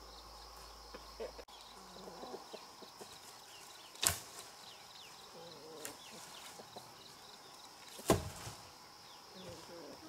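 Two sharp chopping blows into wood, about four seconds apart, with a few lighter knocks between them, over a steady high insect drone and faint bird chirps.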